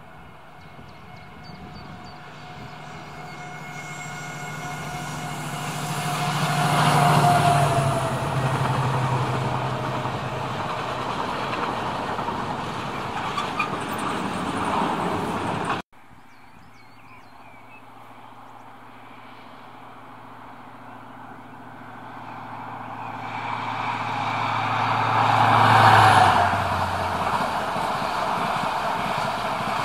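Colas Rail Class 70 diesel locomotive running at speed as it passes, its engine note dropping as it goes by, followed by the steady rumble of loaded cement tank wagons on the rails. Then a second train, an LNER passenger train, approaches and passes with its own falling engine note.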